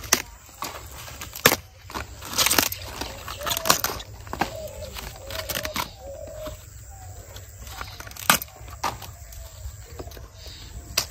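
Crisp cracks and snaps of outer leaves being torn off a freshly cut cabbage head by hand, coming in irregular bursts, a few of them loud.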